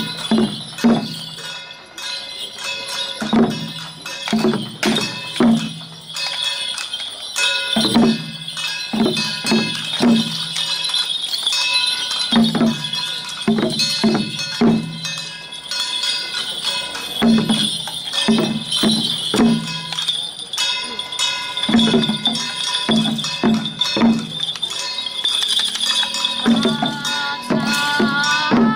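Traditional Taiwanese temple-festival percussion: low drum-like strikes in small groups every second or two, over steady ringing metal percussion, with voices in the background.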